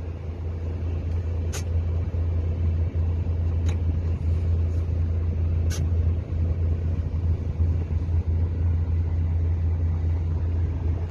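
Mercedes-Benz Arocs truck's diesel engine idling steadily, heard from inside the cab as a low, even hum, with a few brief clicks.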